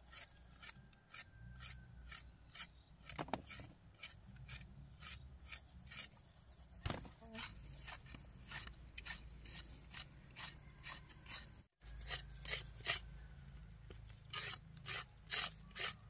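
Quick, repeated rasping scrapes of hand-work on cassava roots, about two to three strokes a second, with a brief break about two-thirds of the way through.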